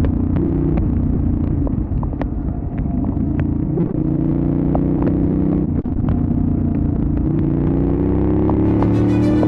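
Benelli Leoncino 800 Trail's parallel-twin engine running under way, holding a fairly steady note, then climbing in pitch over the last couple of seconds as the bike accelerates.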